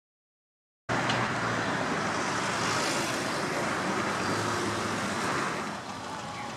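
Silent for about the first second, then steady outdoor road-traffic noise cuts in suddenly, easing slightly near the end.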